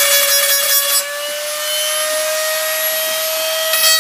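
Dremel rotary tool with a sanding bit running at a steady high whine while grinding the glass back of an iPhone 8. A gritty rasp from the bit on the glass eases off about a second in, leaving the motor whine creeping slightly up in pitch, and comes back near the end.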